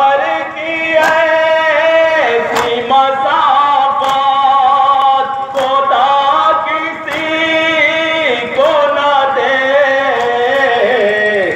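Men's voices chanting a Shia nauha lament in a sustained, melodic line, with sharp hand slaps of chest-beating matam about every second and a half.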